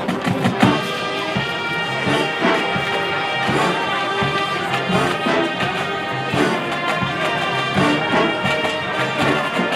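High school marching band playing: brass holding chords over drum hits.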